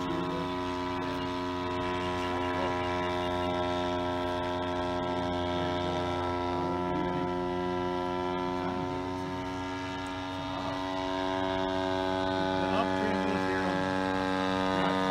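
Full-scale radio-controlled Demoiselle monoplane's motor and propeller flying overhead: a steady, even-pitched drone that grows a little louder about ten seconds in.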